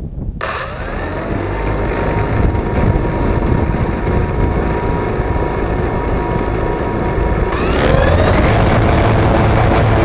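Flexify drone's electric motors and propellers spinning up suddenly from rest, then running steadily with a whine. About eight seconds in they rise in pitch and get louder as the throttle is raised.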